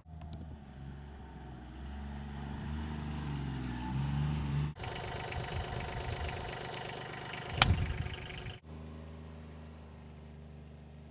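John Deere Gator utility vehicle engine running, rising in pitch as it revs, then idling steadily, broken by abrupt cuts. One sharp, loud knock about two-thirds of the way through.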